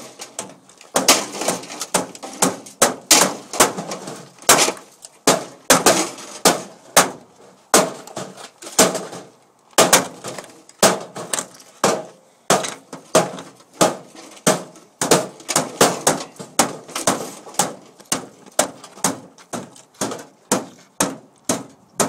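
Scrap microwave ovens being broken apart with repeated hard blows, about two a second and uneven, each with a short ringing.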